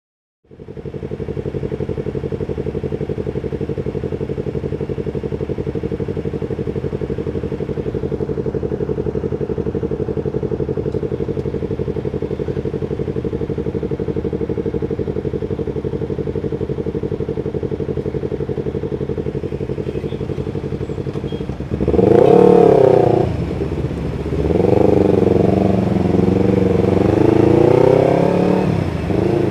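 Yamaha MT25's parallel-twin engine idling steadily, then about 22 seconds in pulling away, revving up with the pitch rising and dropping back at each gear change.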